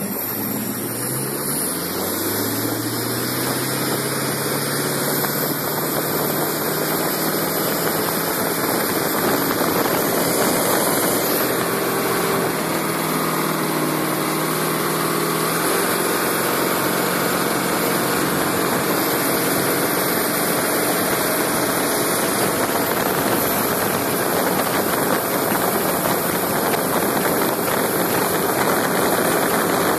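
Rebuilt Chrysler Poly 318 V8 inboard engine of a wooden racing runabout, rising in pitch over the first couple of seconds as the boat accelerates, then running steadily at speed. A steady rush of wind and water spray off the hull runs under it.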